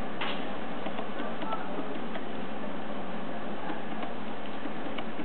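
Antelope horns clacking now and then as two males spar. The clicks are sharp and scattered, the loudest just after the start, over a steady hiss.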